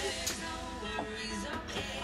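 Background music, quieter here with soft sustained tones and light ticks.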